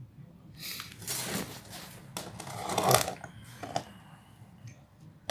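Irregular rustling and clinking of disassembled engine parts being handled, loudest about three seconds in, with a short click near the end.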